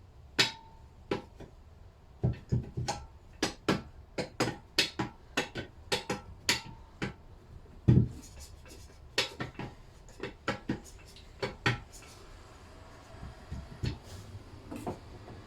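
Light, irregular taps with the handle of a hammer, easing the crankshaft and bearing assembly of a Lister D engine into its cast-iron crankcase. There are about two dozen taps, a few with a short metallic ring, and they thin out near the end.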